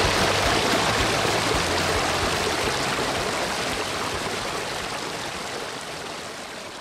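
Water rushing and splashing over rocks in a small mountain stream: a steady rush that fades gradually away toward the end.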